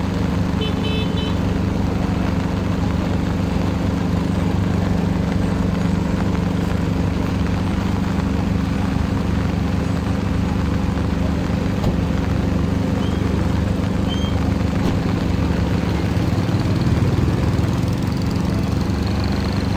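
A steady low engine hum under a continuous wash of noise.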